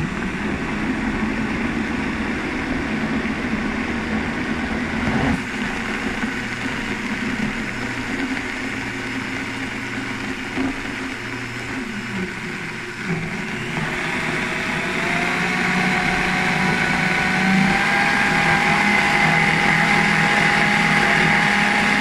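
High-powered countertop blender running, blending a thick cashew sauce with water added. About two-thirds of the way in, the motor's whine rises in pitch and gets louder.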